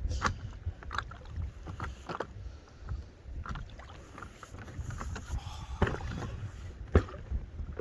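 Sea water splashing and lapping in short, irregular splashes about a second or so apart, over a low rumble of wind on the microphone.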